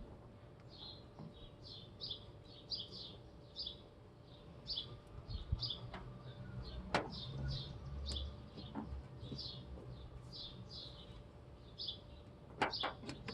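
Small birds chirping over and over, short high falling chirps about one or two a second. A few sharp clicks and knocks stand out, the loudest about seven seconds in and a cluster near the end.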